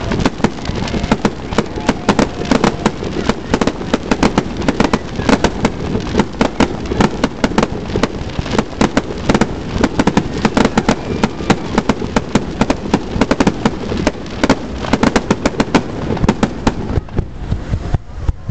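Aerial fireworks display: a rapid, nearly unbroken run of sharp bangs and crackles from shells bursting and comets rising, with a short lull near the end.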